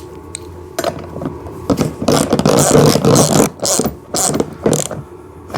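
Ratchet wrench tightening a 17 mm nut on a ride-on car's wheel: a dense run of rapid ratchet clicking in the middle, then a few scattered clicks.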